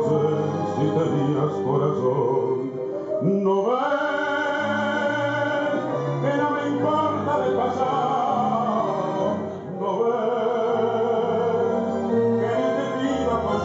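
Recorded tango music with a singer's voice carrying the melody, playing for the dancers.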